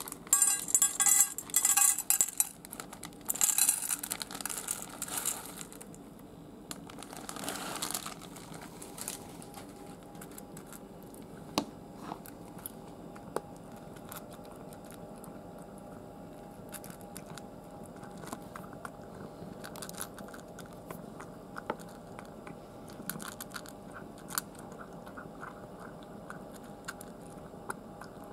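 Dry kibble poured from a crinkling plastic bag clatters into a stainless steel bowl for the first few seconds. Then a cat crunches the dry food from the bowl, with faint, irregular crunching clicks.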